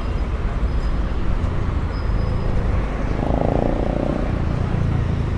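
City street traffic: a steady rumble of passing motor vehicles, with one passing a little louder about three seconds in.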